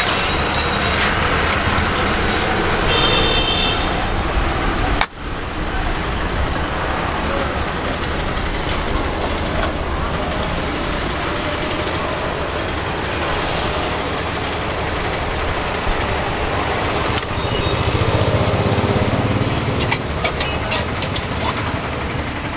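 Steady road traffic noise with vehicle engines running. It breaks off sharply about five seconds in and resumes, and swells low near the end.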